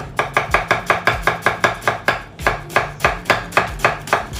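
Chef's knife shredding a cabbage half on an end-grain wooden cutting board, in a quick, even run of about five cuts a second.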